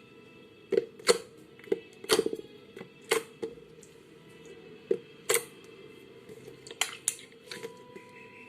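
Slime being squeezed and poked, giving irregular sharp clicks and pops.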